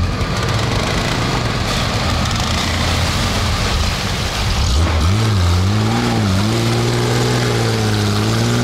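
A vehicle engine runs with a steady rumble. About five seconds in, an engine's note rises and falls as it is revved and eased off, then climbs again near the end.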